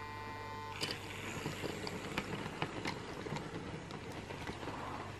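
A Hornby 00 gauge model Terrier tank locomotive setting off with a train of goods wagons. A high steady motor whine runs until about a second in, then a click, then the train rattles along with irregular clicks from the wheels on the track joints.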